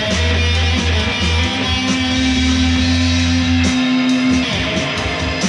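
Electric guitar played through an amplifier over a deep, steady bass line, with one long held note through the middle.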